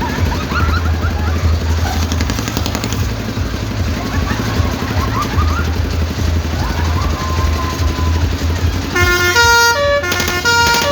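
Kora kora ride running with a steady low hum and faint screams from its riders. About nine seconds in, its telolet horn starts playing a tune of loud, held notes stepping from pitch to pitch.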